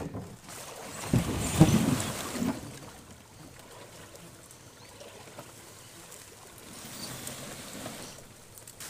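Loaded canoe being pushed through dense brush in a shallow, choked creek: branches scraping and rustling against the hull and gear, with some water trickling. The loudest stretch of rustling and scraping comes about a second in.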